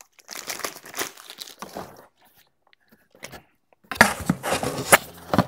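Plastic packaging crinkling as bagged camera accessories are handled and unpacked from a cardboard box. It crinkles for about two seconds, pauses, then crinkles more loudly near the end.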